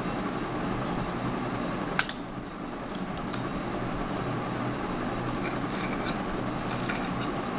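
A glass bowl set down on a table with one sharp knock about two seconds in, followed by a few light clicks of a metal spoon against a plate as sauce is spread, over a steady low hum.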